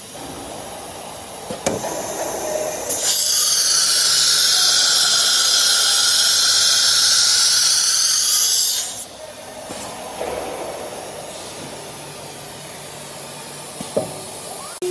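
Automatic tool change on a CNC router's carousel tool changer: a couple of sharp pneumatic clicks, then a loud hiss of compressed air from the spindle for about six seconds that cuts off suddenly, and another click near the end.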